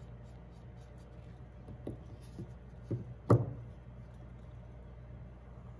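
A few soft taps, then one sharp knock about three seconds in: a stretched canvas on its wooden frame being set down flat on the table. A faint steady hum runs underneath.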